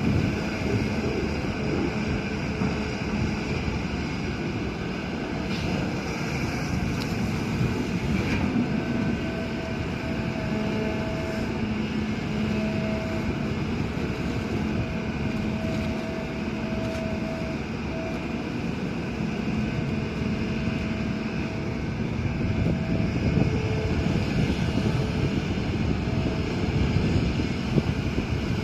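Excavator's diesel engine running steadily, a continuous low drone with a held tone, growing a little louder over the last few seconds.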